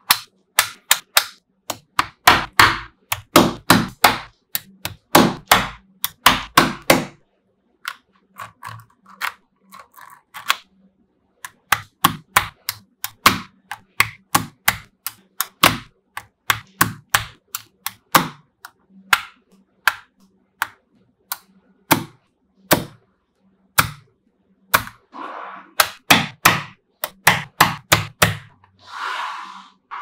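Small magnetic balls clicking as bars and blocks of them are snapped together, a long irregular run of sharp clicks with busier stretches of clattering near the start and near the end.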